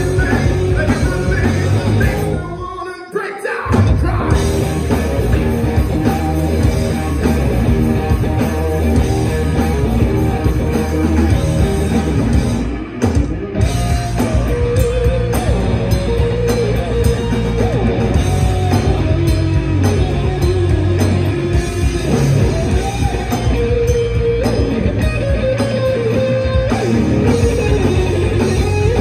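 Rock band playing loud, live: electric guitars, bass guitar and drum kit. The band drops out briefly about three seconds in. Later a lead line slides and bends in pitch over the band.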